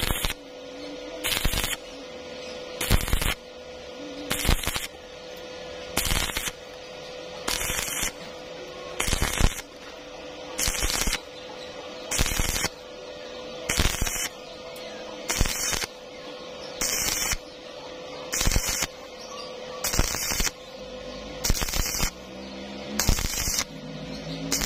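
Stick-welding arc on thin galvanized square tube, struck in short bursts about every second and a half as the rod is stitched along the joint, with a steady hum underneath. The arc is made and broken over and over, the stitch method used on thin metal to keep from burning through.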